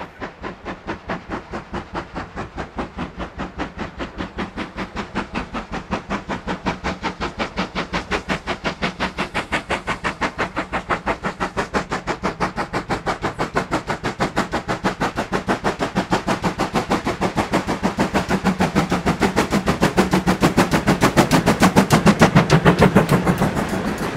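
Steam locomotive working hard on the climb, its exhaust beating in a rapid, even rhythm. The beats grow louder as it approaches and are loudest a couple of seconds before the end.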